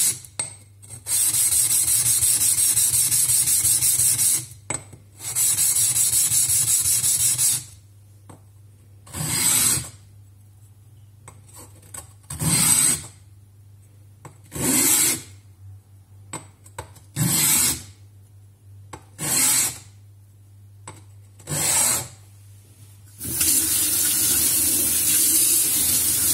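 A sharpening stone being rubbed on a lapping plate to flatten it, a scraping sound. It starts with two stretches of continuous back-and-forth rubbing, then comes as single strokes every two to three seconds, then continuous rubbing again near the end.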